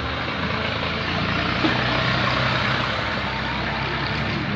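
Motor vehicle engine running with a steady low hum over busy street noise.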